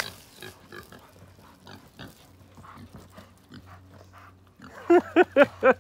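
A pig squealing while it is grabbed and roped: a quick run of about five short, loud squeals near the end, after several seconds of faint scuffling.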